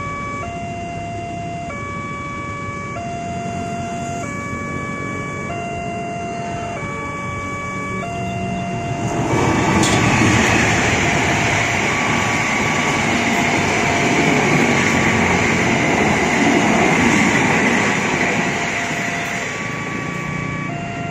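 Level-crossing alarm sounding a two-note electronic chime, alternating between the two notes about once a second. From about nine seconds in, a diesel-hauled passenger train passes; its loud rumble and wheel noise cover the chime, then fade near the end.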